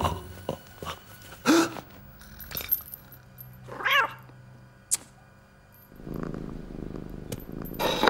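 Cartoon cat sound effects: a single drawn-out meow about four seconds in, then a low rumble from about six seconds on. A few short, loud sounds come before the meow, the loudest about one and a half seconds in.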